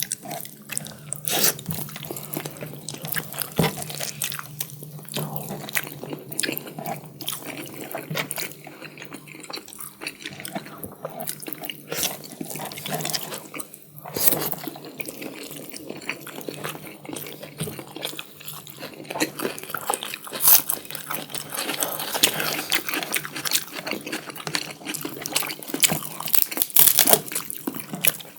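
Close-miked wet eating sounds: chewing and lip smacking on spicy chicken curry and biryani rice, a dense run of small moist clicks and squelches.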